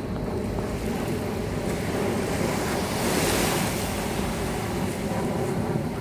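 Small waves lapping and washing up onto a sandy shore, with wind rumbling on the microphone; one wash swells up louder and hissier about three seconds in.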